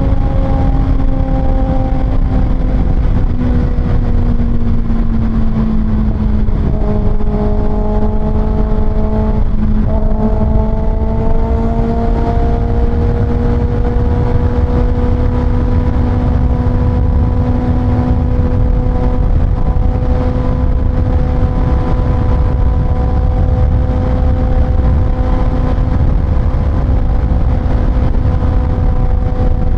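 Kawasaki ZX-6R's 636 cc inline-four with an Austin Racing exhaust, running at a steady cruise; the engine note eases slightly over the first few seconds, then holds steady. A heavy low rush of wind and road noise runs underneath.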